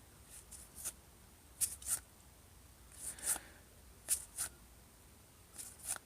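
Baseball trading cards being slid and flipped through by hand, a short papery swish as each card is moved to the back, often two close together, about once a second.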